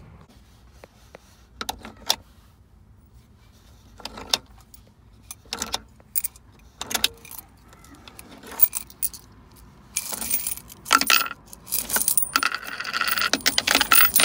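Coins clinking as they are pushed into and taken out of a car console's spring-loaded coin holder: scattered single clinks at first, then a denser run of metallic jingling near the end.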